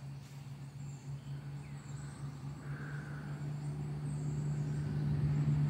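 A steady low motor hum, growing louder over the last couple of seconds, with faint high bird chirps over it.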